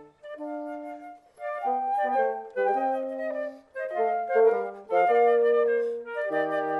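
Chamber trio of two transverse flutes and a bassoon playing classical music, the bassoon carrying a low line under the flutes' melody, with brief breaks between phrases.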